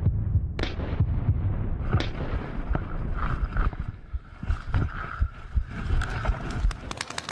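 Paintball markers firing in scattered pops over a heavy low rumble.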